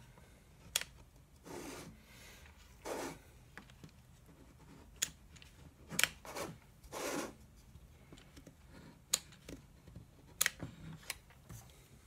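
Hot glue gun being worked around a PVC ring: faint scattered sharp clicks and three short rubbing swishes as the gun and ring are handled.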